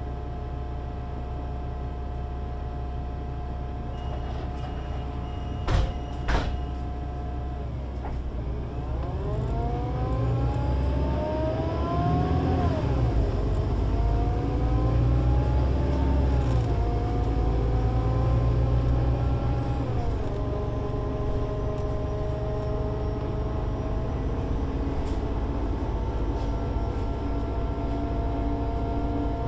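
Solaris Urbino 18 IV articulated bus with a DAF diesel engine and Voith Diwa 6 automatic gearbox, idling with a short beep and two sharp knocks about six seconds in, plausibly its doors closing. It then pulls away, the engine rising in pitch and dropping back three times at the gear changes, then running steadily.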